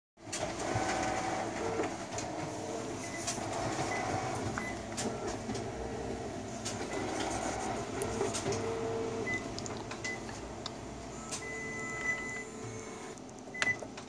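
Canon iR1600 copier running steadily with mechanical noise, with a few short high beeps and clicks from its control panel as buttons are pressed.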